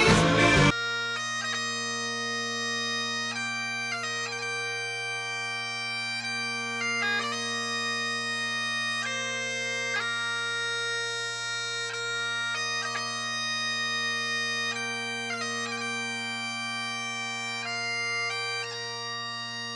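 Bagpipe music: steady drones under a chanter melody that steps from note to note. A different, louder piece of music cuts off under a second in.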